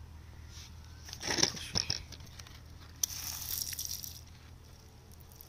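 Rock being broken and pried loose with a tool: two hard crunching knocks about a second in, then a sharp crack followed by about a second of gritty scraping and crumbling stone.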